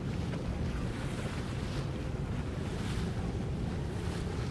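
Wind blowing on the microphone over open water, with water splashing and a low steady rumble underneath.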